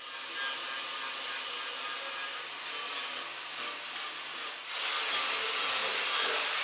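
Angle grinder grinding down welds on steel parts flush, a steady rasping hiss that grows louder about five seconds in.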